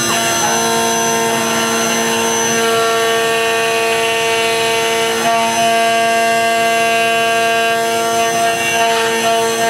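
CNC router spindle whining steadily as a 1/2 inch ball-nose cutter takes a roughing pass through hard, dense Karri. The tone shifts in pitch about half a second in, about five seconds in and again near the end, as the load on the cutter changes.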